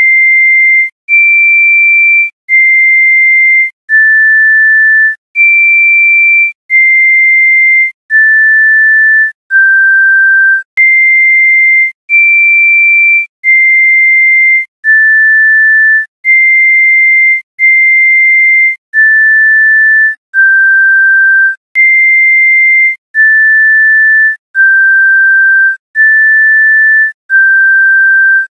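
A slow, high-pitched melody played as pure electronic sine-wave tones, one held note a little over every second with a short break between notes.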